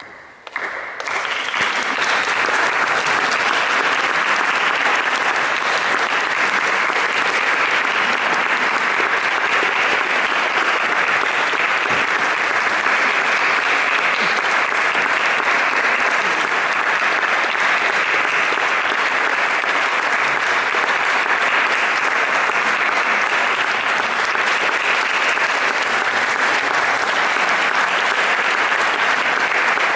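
Audience applauding: the clapping breaks out suddenly from silence, fills out within about a second and then keeps going steadily.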